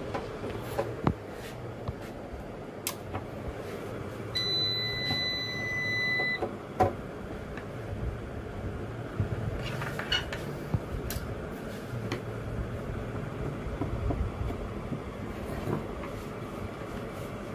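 Hybrid inverter's buzzer giving one steady, high electronic beep about two seconds long, starting about four seconds in, as the unit powers up. Around it are a low steady hum and a few light clicks and knocks.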